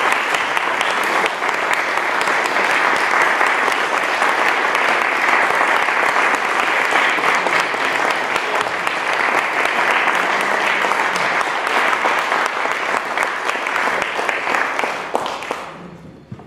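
Audience applauding, a steady crowd of clapping that dies away near the end.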